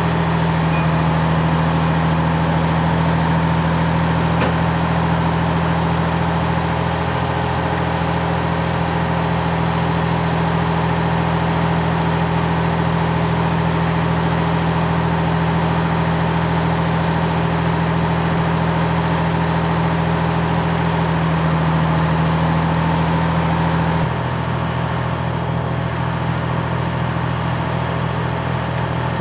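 A heavy engine idling, a constant low drone that holds one pitch, a little quieter in the last few seconds.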